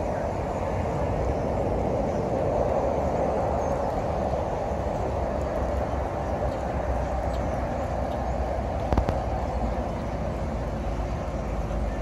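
Steady engine noise from idling trucks and traffic: a continuous low rumble with a droning hum above it. A single brief knock comes about three-quarters of the way through.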